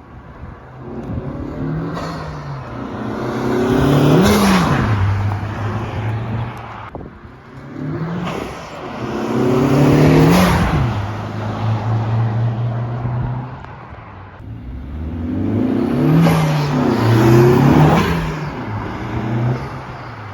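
Honda Civic Type R with an Injen aftermarket intake, accelerating hard three times with its engine revving up, the engine note growing louder and rising in pitch each time before it drops away.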